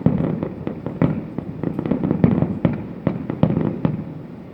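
Fireworks going off: a dense run of bangs and crackling pops that thins out and fades near the end.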